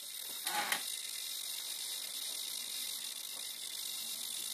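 Electric RC helicopter's servos giving one short whir about half a second in, as the flight controller initializes, against a steady hiss.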